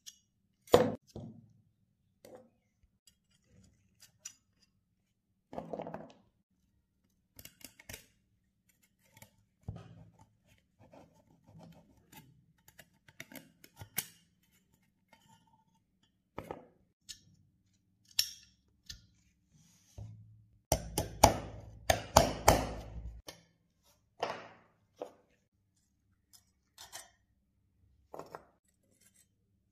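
Metal tools clicking, clinking and scraping against a rusty steel pistol frame as it is worked on and handled, in short separate strokes. About two-thirds of the way through comes a quick run of sharper, heavier knocks.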